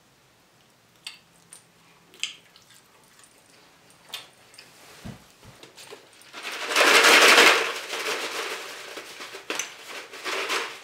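Close-miked eating sounds: a few soft mouth clicks and a dull thump, then about six seconds in a loud crunching noise lasting a second or two that trails off into smaller clicks.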